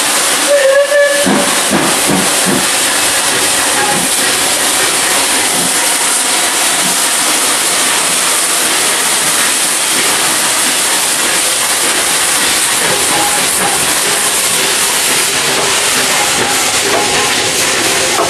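Steam locomotives 34067 Tangmere and 70000 Britannia double-heading a train slowly past: a short steam whistle blast about half a second in, then a steady loud hiss of escaping steam mixed with heavy rain as the engines and coaches roll by.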